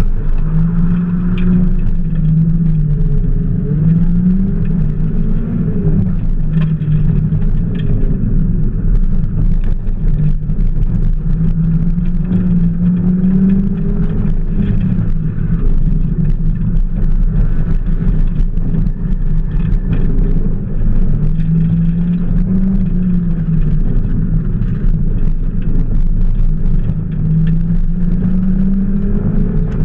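Mazda Miata's four-cylinder engine driven hard through an autocross course, its pitch climbing under acceleration and dropping off several times as the driver accelerates and lifts between cones. It is heard from behind the seats of the open-top car, over a steady low rumble.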